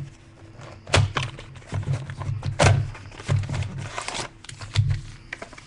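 Trading-card boxes and packs being handled and opened on a table: irregular thumps and knocks of cardboard, with short rustles of packaging.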